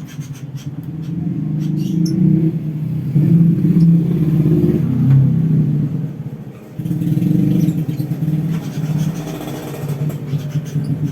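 A motor vehicle engine running close by, swelling and easing, with a sharp dip about six and a half seconds in before it picks up again; short high clicks sound over it.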